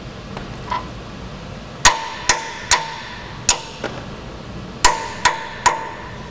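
Hammer blows on the steel of a forklift being taken apart: about eight sharp, ringing metal strikes, mostly in two quick runs of three.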